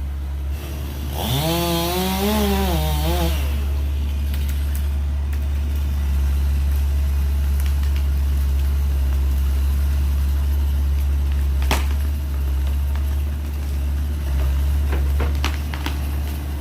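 Heavy diesel machinery running with a steady low rumble, while a chainsaw revs up and back down for about two seconds, about a second in. A single sharp crack sounds near the twelfth second, with a few lighter knocks toward the end.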